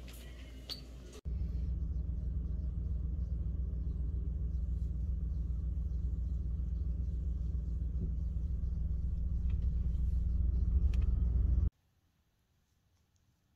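Loud, steady low rumble that swells a little and then cuts off suddenly near the end, leaving near silence.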